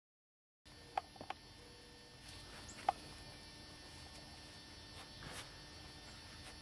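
Dead silence, then from about half a second in a faint, steady hum with a few short, sharp clicks in the next couple of seconds and softer brief scuffs later.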